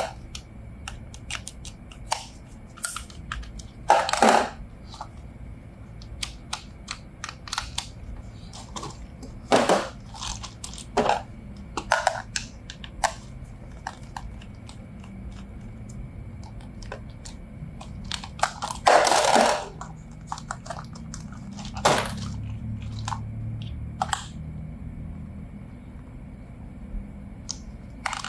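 Toy packaging being handled and unwrapped: scattered plastic clicks and taps, with a few short, louder crinkling rustles, the longest about two-thirds of the way through.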